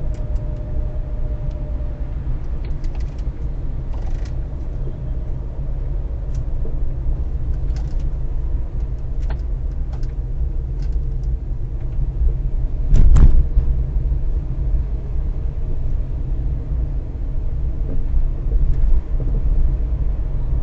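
Car driving along a road: a steady low rumble of road and engine noise with scattered faint clicks, and one loud thud about 13 seconds in. The car's anti-roll bar bushes have just been replaced, yet the owner says the knocking noise still comes.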